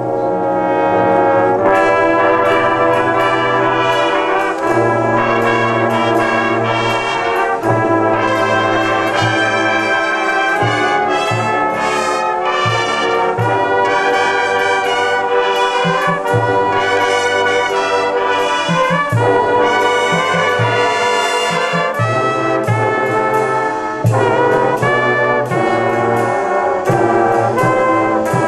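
Drum and bugle corps horn line playing loud brass music in full, sustained chords, with a low brass line holding long notes underneath.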